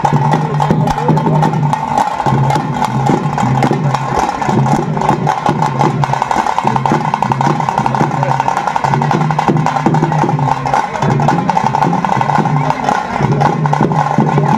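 Tase drums beaten fast with sticks for the pili vesha tiger dance: a dense, continuous clattering rhythm with a low tone repeating underneath.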